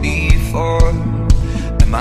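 Background song: singing over a steady beat of about two strokes a second.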